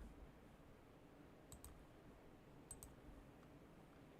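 Near silence with two faint double clicks, about a second and a half in and again a little over a second later.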